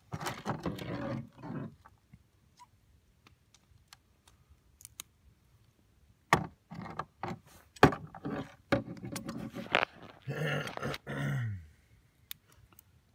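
Shell of a boiled Murray crayfish being cracked with a metal cracking tool on a plastic cutting board: sharp cracks, crunches and metal clicks, in a short spell at the start and a longer run from about six seconds in. Near the end there is a short vocal sound that falls in pitch.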